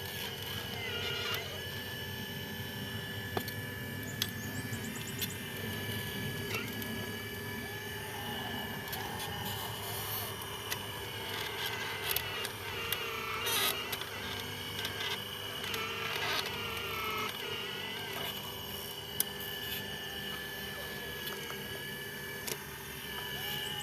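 Small electric motors and plastic gearboxes of radio-controlled model construction vehicles whining steadily, their pitch shifting as the motors speed up and slow down, with scattered clicks.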